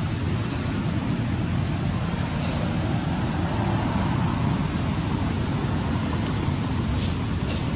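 Steady low rumbling background noise, with a few faint short clicks about two and a half seconds in and twice near the end.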